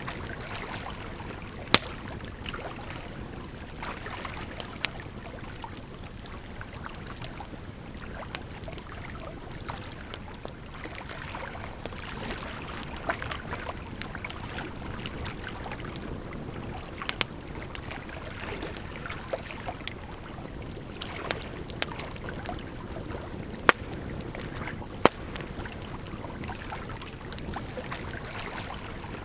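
Firewood burning with irregular sharp crackles and pops, a few loud snaps among many small ones, over a steady sound of flowing water.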